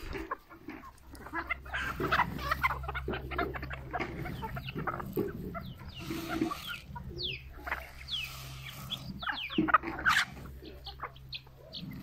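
A flock of free-range hens clucking and calling while they feed, many short overlapping calls with quick high falling notes among them, over a steady low hum.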